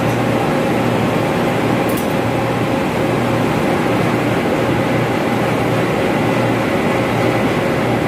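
Steady drone and air rush of ventilation machinery running in a mechanical room, with a faint steady hum above it and a brief click about two seconds in.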